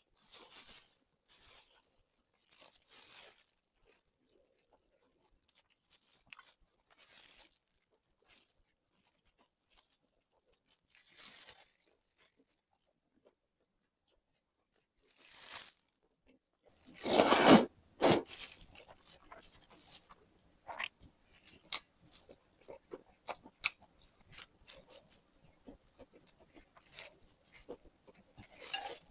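Close-miked eating: a person biting and chewing crunchy food, in scattered short crunches with pauses between, one much louder crunch about two-thirds of the way in, then a quick run of many small chewing clicks.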